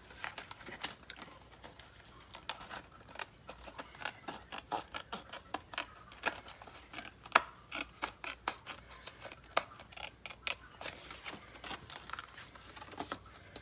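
Craft snips (Tim Holtz Snips) cutting, a run of short, irregular snipping clicks, a few per second.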